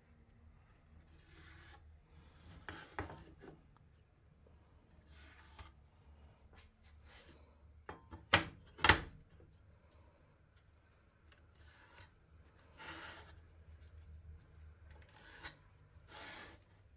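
Short scraping and rubbing strokes on a wooden board as cut lines are marked off with a square, with two sharp knocks close together a little past the middle.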